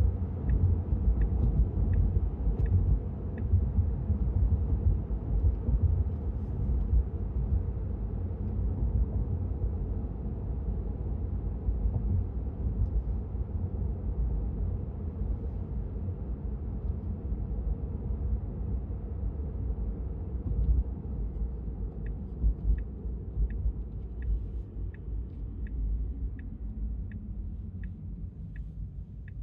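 Tyre and road rumble inside the cabin of an electric Tesla Model 3 at speed, easing and growing quieter as the car slows toward a junction. A turn-signal indicator ticks steadily for the first few seconds and again over the last several.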